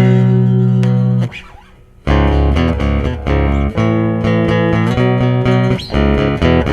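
Guitar music with plucked notes over a bass line. The playing stops briefly about a second and a half in, then picks up again in a steady rhythm.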